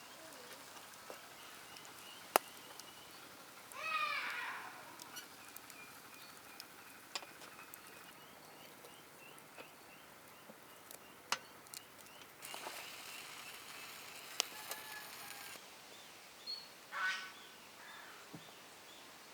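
Birds calling outdoors: one loud call about four seconds in, faint chirping after it, and two more calls near the end. Scattered light clicks, and a stretch of hiss for about three seconds in the middle.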